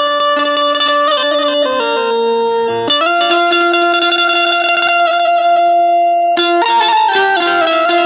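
Hira electric Indian banjo (keyed, bulbul tarang type) played through an amplifier: a melody of stepped notes, each held by rapid repeated picking, with one long held note about three seconds in.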